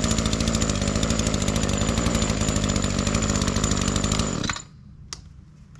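Echo SRM-2620T string trimmer's small two-stroke engine running steadily after a new intake isolator and throttle trigger have been fitted. It cuts off suddenly about four and a half seconds in, followed by a single click.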